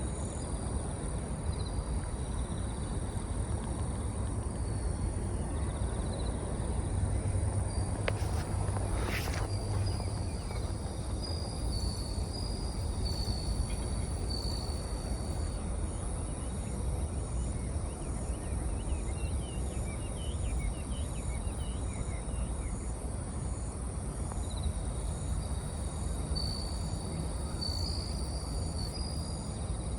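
Bell crickets (suzumushi) singing: repeated short, high, bell-like trills, over a steady higher-pitched insect buzz and a low background rumble. A brief rushing sound passes about nine seconds in.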